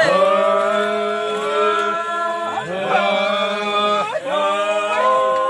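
A group of voices chanting together in long held notes, in phrases a second or so long with short breaks between them.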